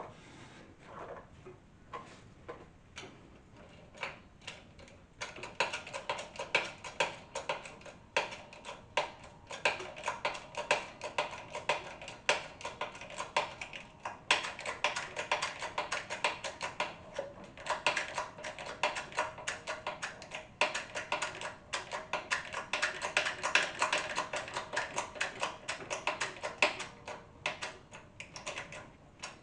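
Rapid, irregular metallic clicking and rattling with a ringing tone, from metal tool parts working against the fork in a homemade spring-compressor setup in a press. The clicks are sparse at first and become dense and busy about five seconds in.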